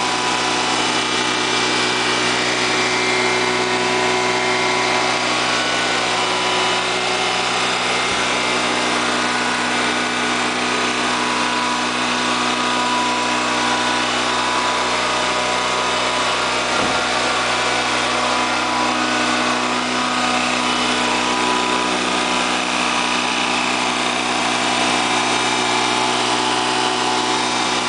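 Freshly rebuilt Honda EV6010 generator engine running steadily on its break-in run, held below the full 6,000-watt load.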